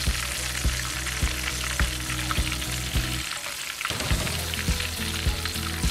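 Hot frying oil sizzling in a wok beneath a whole fried black sea bass held up to drain. It is heard over background music with a steady beat of about three knocks a second, and the music's low notes drop out briefly a little past halfway.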